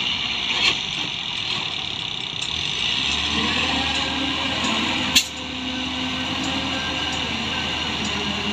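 Crane tow truck's engine running steadily, its low note growing stronger about three seconds in, with one sharp metallic knock about five seconds in.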